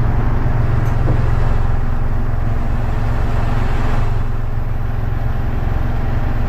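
Fishing boat's engine running steadily at an even, low pitch.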